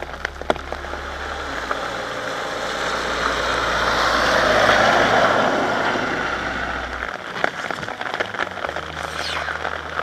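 A vehicle passing on a wet road in the rain: tyre hiss on wet tarmac swells to a peak about five seconds in, then fades.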